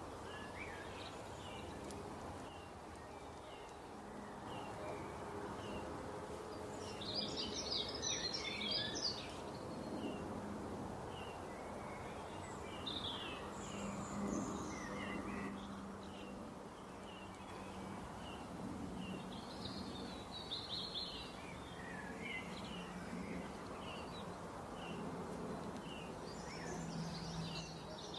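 Wild birds singing: one bird repeats a short high chirp over and over, while bursts of busier, louder song break in several times, over a steady background hiss and faint hum.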